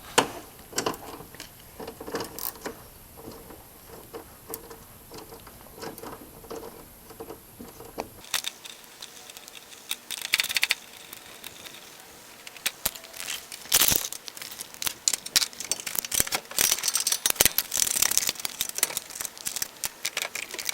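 Hand tools at work on the hood bolts of a lawn tractor: irregular metal clicks, clinks and rattles as the bolts are loosened.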